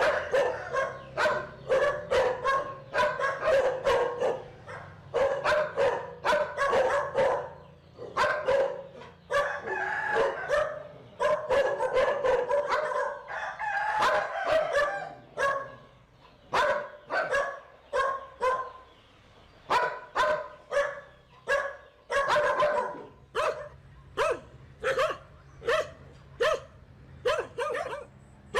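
A dog barking over and over in fast runs of short barks, with brief pauses between the runs.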